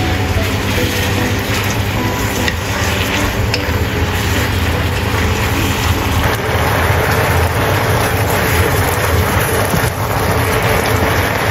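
Amaranth leaves sizzling steadily in a wok in a watery fermented bean curd sauce while a wooden spatula stirs and tosses them. The sizzle grows a little fuller about halfway through.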